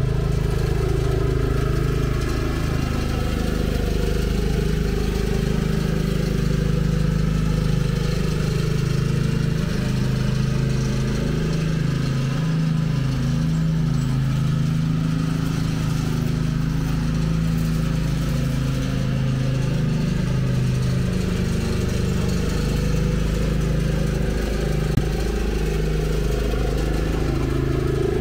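Cub Cadet CC30H riding lawn mower's engine running steadily while mowing, with one brief click near the end.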